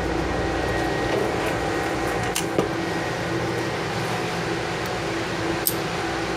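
Steady mechanical hum of a chairlift station's running machinery, with a couple of short sharp metal clicks from a climbing harness being unbuckled.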